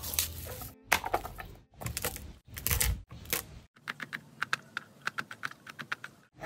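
Meat cleaver chopping garlic cloves on a plastic cutting board: a quick, even run of sharp knocks through the second half, about six a second. Before that come a few scattered knocks and rustles as the cloves are handled.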